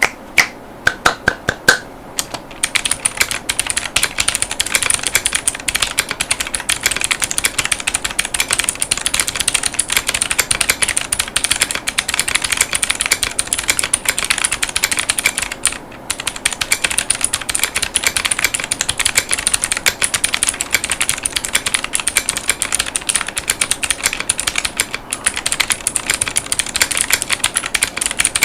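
Yunzii X75 mechanical keyboard with Yunzii Crystal White tactile switches and clear polycarbonate Cherry-profile keycaps being typed on. It starts with a handful of separate, louder key presses, then about two seconds in becomes fast, continuous typing that pauses briefly twice.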